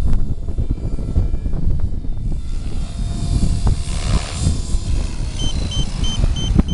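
Gaui X7 electric RC helicopter in flight, its rotor and motor whine under heavy wind buffeting on the microphone. Near the end a rapid, high electronic beeping starts, about three beeps a second.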